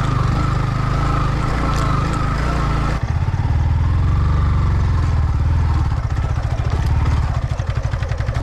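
Motorcycle engine running on a rough off-road track. About three seconds in the sound changes abruptly to a deeper, evenly pulsing beat.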